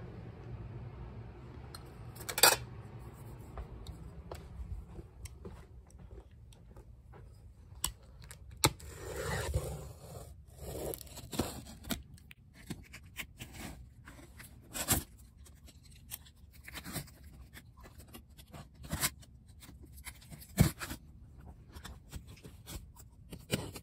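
A box cutter slitting packing tape and scraping along a cardboard box, with scattered sharp clicks and taps and a longer tearing scrape about nine seconds in.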